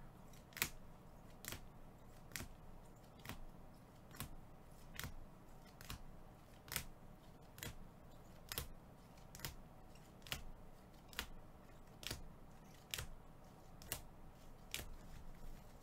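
Rigid plastic top loaders clicking against one another as toploaded trading cards are flipped through one at a time, a short sharp click about once a second.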